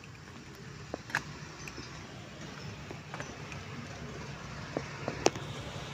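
Steady low rumble of a vehicle engine, with a few scattered sharp clicks, the loudest about five seconds in.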